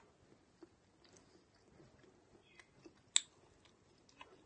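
Close-miked mouth sounds of a person chewing a soft spicy pork floss bun: faint, scattered wet clicks and smacks, with one sharp click about three seconds in.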